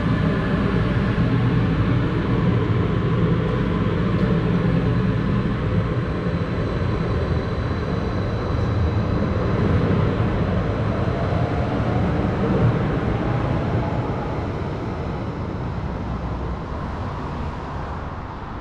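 Calgary C-Train light rail train pulling out of the station close by, with a steady low running hum and a faint rising whine as it gathers speed. It fades over the last few seconds as the train moves away.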